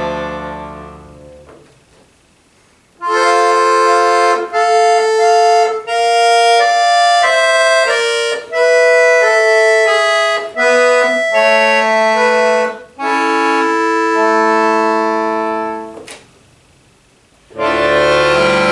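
Piano accordion playing contemporary classical music. A low chord fades out over the first second and a half, then after a short silence comes a run of held treble chords in short phrases with brief breaks. After another pause about sixteen seconds in, a loud full chord with low notes enters near the end.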